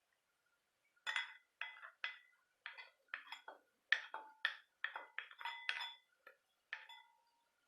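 A kitchen utensil clinking repeatedly against a dish and pot while pounded garlic and ginger are scraped in: about a dozen sharp clinks, each with a brief ring, in irregular succession.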